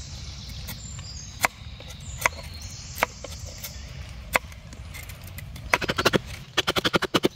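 Hatchet chopping into a deadwood stick to taper its end: six sharp single strikes, evenly spaced and under a second apart, then from about six seconds in a fast run of short, light strokes, several a second, as the wood is shaved down.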